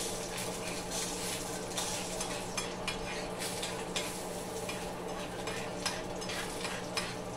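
Scrambled eggs sizzling in a skillet while a metal spoon stirs and scrapes them, with light irregular scrapes and taps of the spoon on the pan over a steady frying hiss and a low steady hum.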